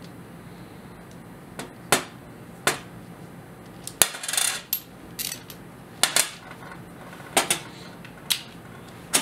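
Small metal workholding parts clicking and clinking against each other and the bench as they are taken apart and set down, about nine separate sharp clicks with a short rattling scrape about four seconds in.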